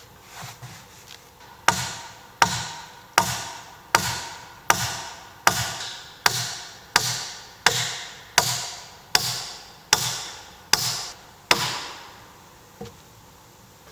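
A tool striking wood fourteen times in a steady rhythm, about one blow every three-quarters of a second, each blow ringing briefly. A single lighter knock follows near the end.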